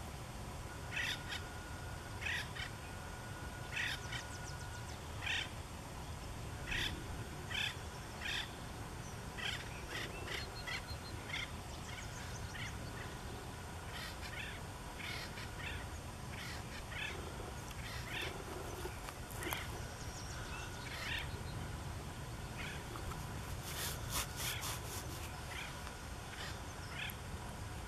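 Acorn woodpecker calling: a long series of short calls, about one or two a second, with a quick cluster of sharper notes a few seconds before the end.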